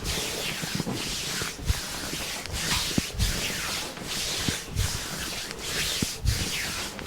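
Hands rubbing over skin in a deep tissue massage: a steady hiss of strokes repeating a little more than once a second, with soft low thumps as the hands press in.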